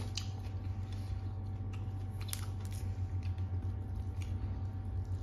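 Close-miked chewing of a mouthful of papaya salad and raw vegetables, with short wet crunches and crisp bites scattered through, over a steady low hum.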